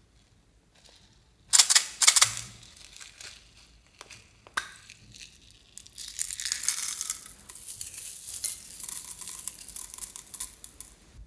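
Small silver metal jingle bells clinking and jingling with a high ringing as they are tipped out of a plastic case into a glass bowl. A few sharp clicks and rattles of the case come about a second and a half in.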